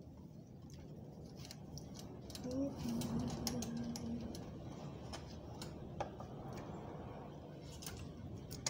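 Scattered light clicks and taps of plastic and metal parts as a ring light is fitted and tightened onto its tripod stand, with a short hummed note about three seconds in.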